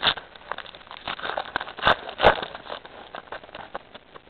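Trading-card packs and cards being handled, foil wrappers crinkling: a run of light crackles and clicks, with a few louder snaps near the start and around two seconds in.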